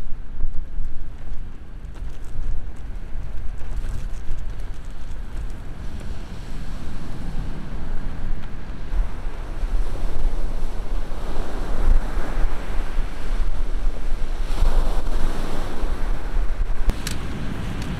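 Strong wind buffeting the microphone, with waves washing on the beach; the gusts grow stronger about halfway through.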